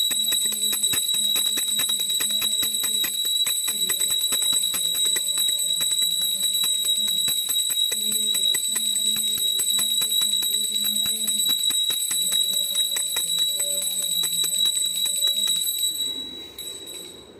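Small brass puja bell rung rapidly and continuously, a steady high ring with quick strikes, over a simple devotional tune; both stop about a second before the end.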